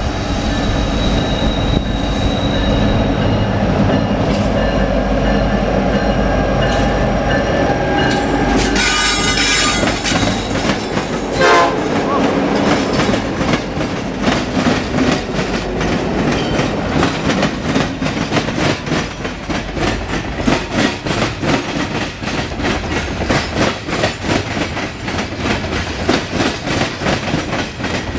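Norfolk Southern diesel locomotives approach and pass close with engine rumble and the horn sounding through roughly the first ten seconds. After that, the coal cars roll by with a rapid, even clickety-clack of wheels over the rail joints.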